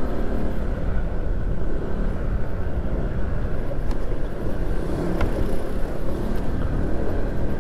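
Steady engine and road noise of a vehicle driving along a road, an even low rumble.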